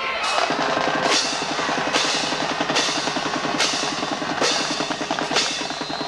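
Marching band drumline playing a cadence: a fast, continuous drum roll with a loud accent about once a second.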